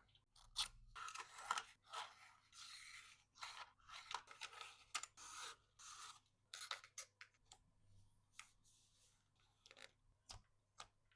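Close-up rustling and crinkling of packaging materials, with sharp clicks, in an irregular series of short bursts.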